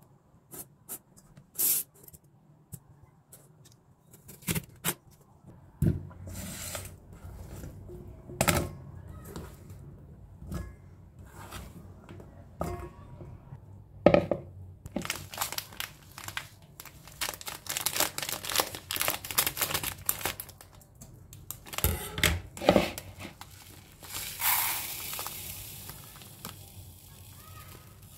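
Kitchen handling sounds: clicks and knocks of a plastic vegetable dicer and cut potato pieces, then one sharp knock of a plastic bowl set down about halfway through. A stretch of crinkling and rustling follows, and over the last few seconds fine dry grain pours into a plastic colander with a steady hiss.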